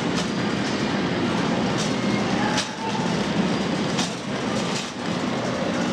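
Shopping cart rattling steadily as it is pushed across a store floor, with a few sharp clanks.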